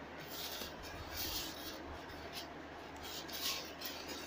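White polystyrene foam packing blocks rubbing and scraping against each other and the box as they are handled and pulled apart, a few short soft scrapes.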